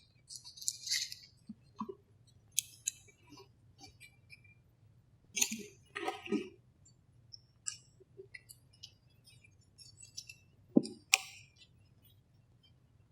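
Hands tying embroidery floss around a pipe-cleaner doll: scattered rustles with light clicks and taps, the sharpest pair of taps about eleven seconds in.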